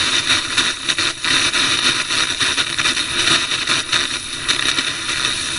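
Loud hissing static of a corrupted broadcast feed, flickering rapidly in level.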